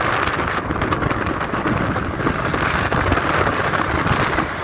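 Steady driving noise of a moving car, a low rumble of engine and tyres with a rushing hiss over it.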